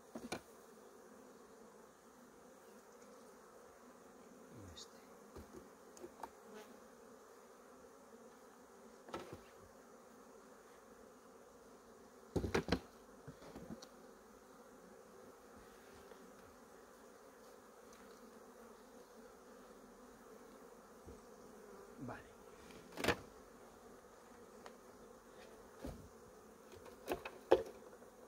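Honeybees buzzing steadily around an open hive, with a few short knocks breaking in now and then; the loudest come near the middle and again later on.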